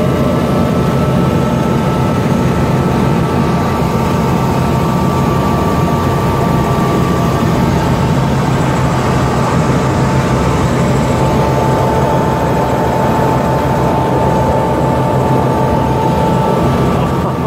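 Helicopter turbine and rotor running steadily, loud from inside the cabin: a dense low drone with a steady high whine.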